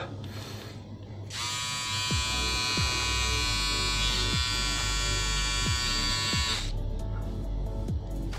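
Sonar HP-300 nose-hair trimmer switched on about a second in, its small motor running with a steady high buzz for about five seconds, then switched off.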